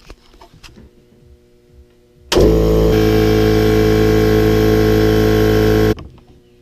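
Electric air compressor switched on about two seconds in: the motor and pump start abruptly and run at a steady, loud, even pitch for about three and a half seconds, then cut off suddenly. A few faint clicks come before it.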